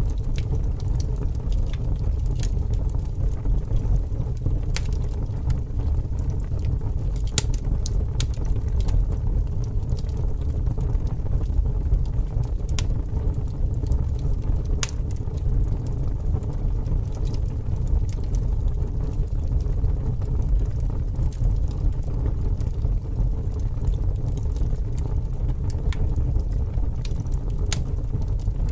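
Bonfire burning: a steady low rumble with sharp crackles and pops scattered irregularly through it.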